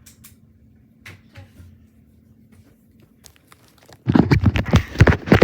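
Objects being handled: a few faint clicks, then from about four seconds in a loud, rapid, irregular clatter of knocks and rattles.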